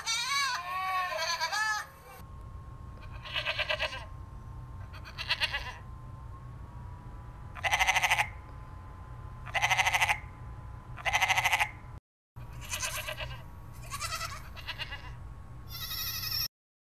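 Goats bleating, a string of short pulsed bleats about a second or two apart.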